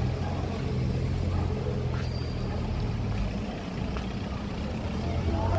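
City street traffic: a large vehicle's engine running steadily close by, a low even hum, over general street noise.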